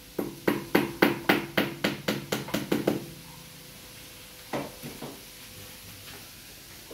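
Rapid hammer blows on a wall, about a dozen strikes at roughly four a second, each with a short ring, typical of nailing in cable clips while running a light's wiring; then a single knock and a few lighter taps.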